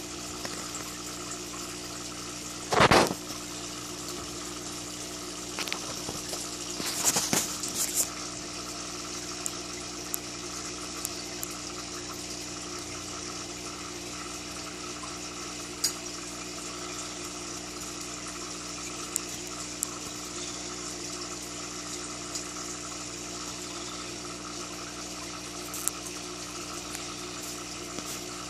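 Aquarium air stone bubbling and filter water running, over a steady hum. A loud, short thump about three seconds in and a brief rattle of knocks around seven seconds.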